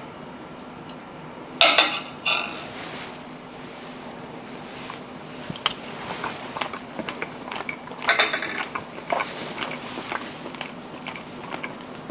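Cutlery clinking and scraping against a dish in short, irregular bursts, loudest about two seconds in and again about eight seconds in, with lighter ticks in between, as tender chicken adobo is pulled off the bone.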